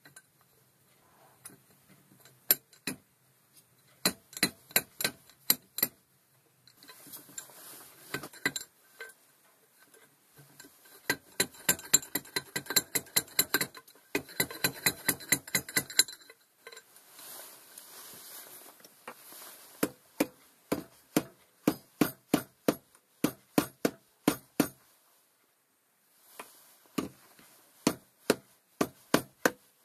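Rapid hammer blows on a homemade steel drift, driving a seal out of a tractor input-shaft gear assembly: sharp metallic clinks with a short ring, in runs of about three to four strikes a second broken by brief pauses.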